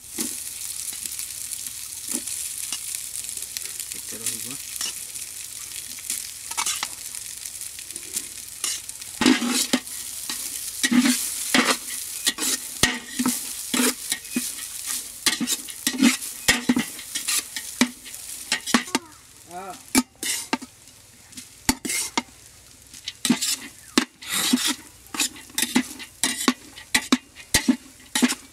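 Vegetables sizzling in a large aluminium pot as cooked rice is tipped in. From about nine seconds in, a metal spatula scrapes and knocks against the pot in quick, repeated strokes, mixing the rice for fried rice. The sizzle dies down past the middle while the scraping goes on.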